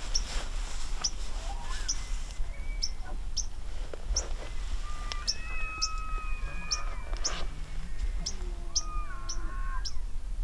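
Distant elk calling in the rut. About halfway through, a bull's high whistling bugle holds for about two seconds, followed by a few lower calls. A steady high ticking repeats about twice a second throughout.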